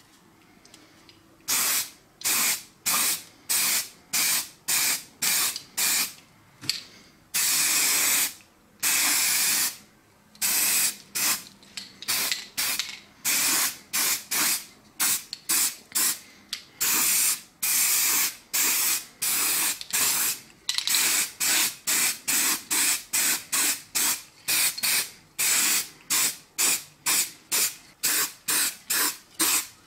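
Aerosol spray-paint can spraying in many short bursts, about two a second, with a few longer sprays of a second or so, laying light coats of paint. The spraying starts about a second and a half in.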